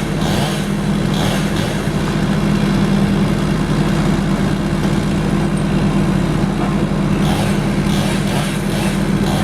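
A large engine on tree-removal equipment running steadily at constant speed, with a run of short, sharp, repeated sounds near the start and again near the end.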